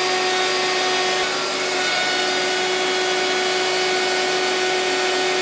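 DeWalt router on an X-Carve CNC milling plywood, running at a steady speed with a constant whine over the noise of the cut.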